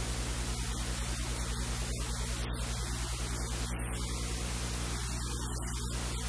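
Steady electrical hiss with a low, even mains hum underneath: the recording's noise floor, with no other sound standing out.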